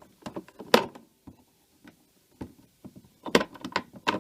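Batteries being pulled one by one out of a cash register's battery compartment: a run of separate clicks and knocks, with the loudest about a second in and a cluster near the end.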